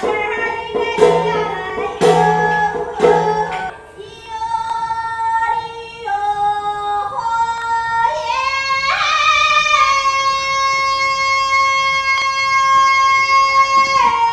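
Background music: a woman singing over plucked string notes, ending on a long held note.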